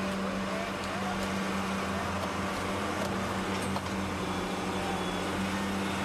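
Heavy construction machinery engine running steadily, a constant low drone with a few faint clicks.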